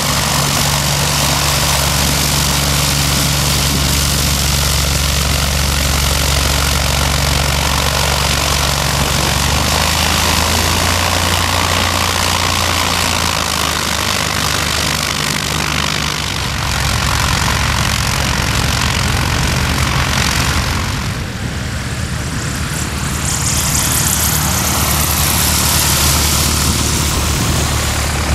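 Single-engine light aircraft's piston engine and propeller running at low power while taxiing, a steady low drone that steps up slightly in pitch about ten seconds in. About three quarters through the sound changes to another light plane's engine at higher power on its takeoff run.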